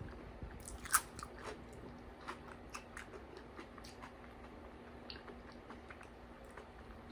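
A person chewing food close to the microphone: faint scattered mouth clicks, with one louder click about a second in.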